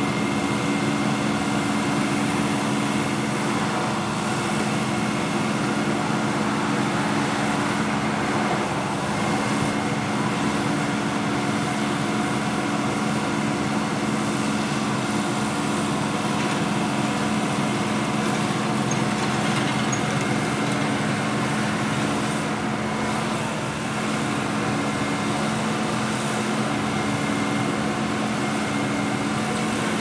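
An engine runs steadily at a constant speed, giving an unchanging hum.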